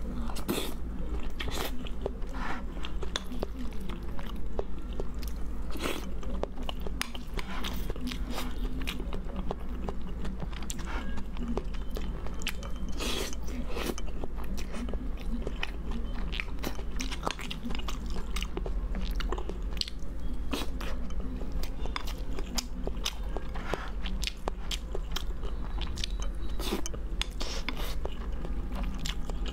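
Close-miked eating of soft spicy tofu and rice: chewing with many short wet mouth clicks and smacks. A steady low hum runs underneath.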